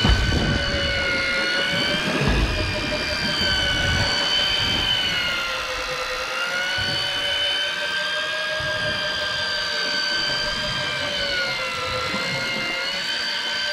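Electric deep-drop fishing reel's motor whining steadily as it winds a fish up from deep water, its pitch wavering slightly up and down.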